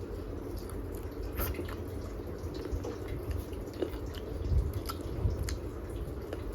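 Wet chewing and mouth smacking of someone eating close to the microphone, with scattered small clicks and a few low thuds partway through.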